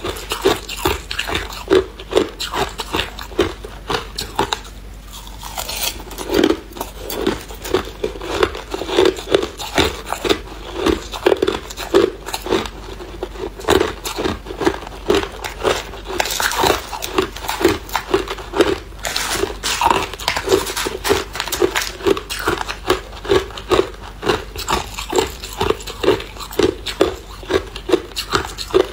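Hard clear ice being bitten and chewed, cracking and crunching between the teeth at a steady pace of about two chews a second.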